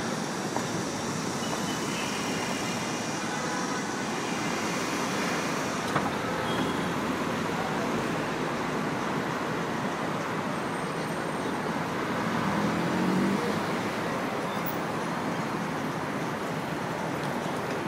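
City street traffic noise: a steady wash of passing road vehicles, swelling as one passes close by about twelve seconds in.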